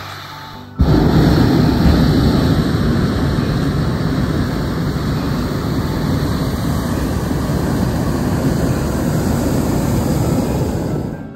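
Hot air balloon's propane burner firing: a loud, steady rush of noise that starts suddenly about a second in and dies away near the end. It is a long burn heating the envelope so that the balloon climbs.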